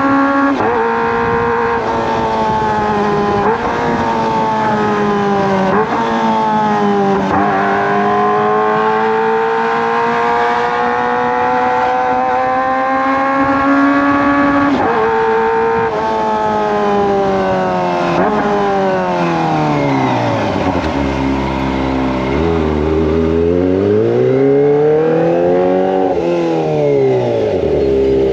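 Kawasaki ZX-25R's 249 cc inline-four engine through a Racefit Slash aftermarket exhaust, heard from on the bike while riding. The revs climb repeatedly with a sudden drop in pitch at each gear change, then about two-thirds of the way through they fall away low, climb again and fall once more.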